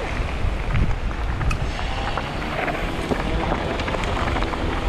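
Wind buffeting the action camera's microphone as a Kona Process 134 mountain bike rolls fast down a loose gravel track. Tyres crunch over the gravel, and many small clicks and rattles come from stones and the bike.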